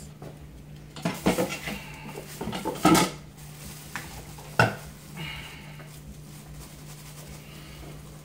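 Kitchen clatter: a few sharp knocks and clinks of dishes and utensils in the first five seconds, the loudest about three seconds in and a short sharp one at about four and a half seconds, over a steady low hum.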